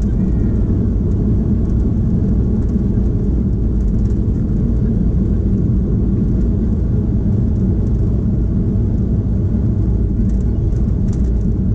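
Cabin noise inside a Boeing 737 rolling along the runway just after landing: a steady low rumble of the engines and the wheels on the pavement.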